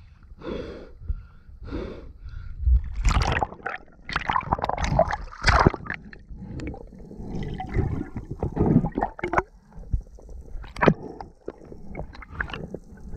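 A diver breathing a few times at the surface, then loud splashing about three seconds in as they dive under, followed by bubbling and gurgling water with scattered clicks, heard on a GoPro.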